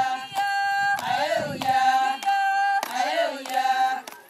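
A group of Maasai women singing together in unison. Long held high notes alternate with short sliding phrases.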